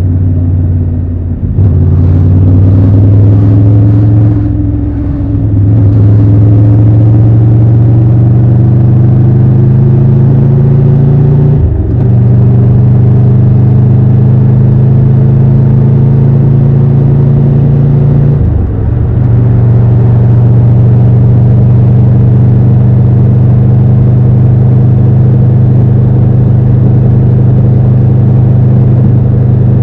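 Triumph Tiger 1200 Rally Pro's three-cylinder engine running under way. Its steady note dips briefly about four times in the first two-thirds, then holds steady.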